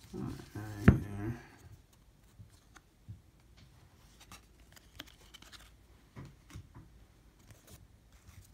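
Baseball trading cards being flipped through and slid against one another in the hands: faint rustles and light ticks of card stock. Near the start a short low murmur from the person, with a sharp click about a second in.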